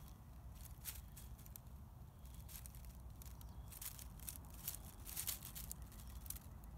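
Faint rustling and crackling of dry oak leaves, scattered light crackles over a low steady rumble.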